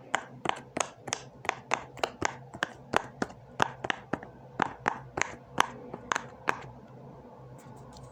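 Small toy being worked on its noisier side, giving a steady run of sharp clicks, about three a second, that stop about six and a half seconds in.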